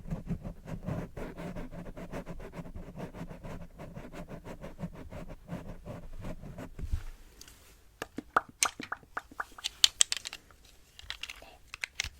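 Close-miked ASMR handling of art tools. For about seven seconds there is a fast, dense run of rubbing or scratching strokes, and then a scatter of sharp, crisp crinkly clicks.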